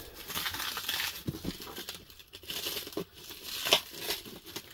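Black plastic parcel wrapping crinkling and rustling as hands grip and pull at it, in irregular bursts with the loudest crackle a little before the end.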